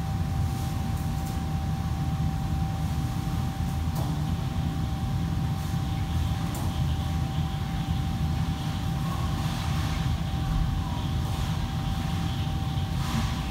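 Steady low rumble of restaurant kitchen equipment running, with a constant thin hum above it and a couple of faint clinks of cookware.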